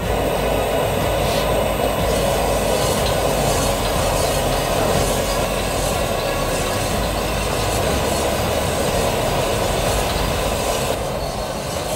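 Gas burner flame running with a steady roar under a cast-iron popcorn cannon, heating the sealed drum of corn to build pressure.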